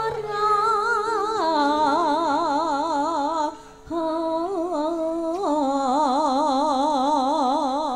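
Campursari music: a singer holds long notes with a wide, even vibrato over steady sustained accompaniment, breaking off briefly about three and a half seconds in before carrying on.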